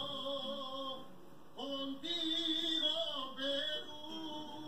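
A man singing long, slightly wavering held notes, with a short break about a second in. Heard through a television's speaker.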